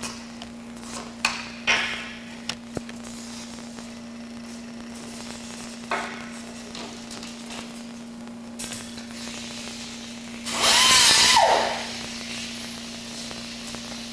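A small air-driven abrasive disc cutter runs in one brief burst about ten seconds in, its whine rising and falling as it spins up and coasts down. Around it are a few sharp knocks from handling the fiberglass-and-foam wing skin, over a steady electrical hum.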